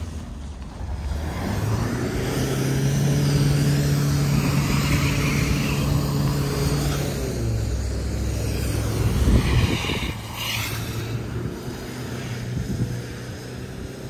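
A motor vehicle passing on the street, its engine hum swelling and fading over several seconds, followed about nine seconds in by a brief, louder rush of noise.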